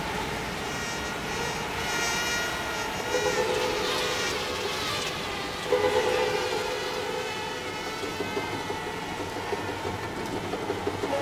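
Eerie film sound design: droning, whining tones layered over a steady hiss. A wavering high whine runs through the first few seconds, and lower held tones swell in twice.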